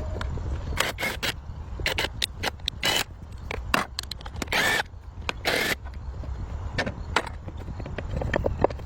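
Irregular knocks and clicks with two longer scrapes near the middle, over a steady low rumble.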